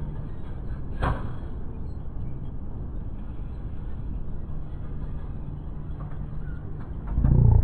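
Steady low rumble of wind and road noise on a riding cyclist's camera microphone, with a sharp click about a second in and a louder low surge near the end.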